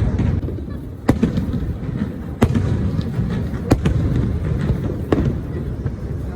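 Aerial fireworks bursting: a sharp bang about every second and a half, five in all, over a steady low rumble.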